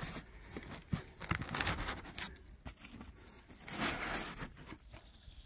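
Unpacking handling noise: foam and cardboard packaging rustling and scraping, with a few sharp knocks. There are two longer rustles, about a second in and near four seconds in.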